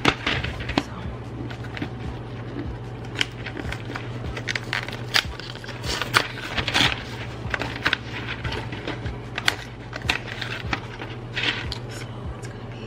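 Cardboard pasta box being torn open at the top by hand: irregular crackling and tearing of the flaps, with short sharp clicks scattered throughout, over a steady low hum.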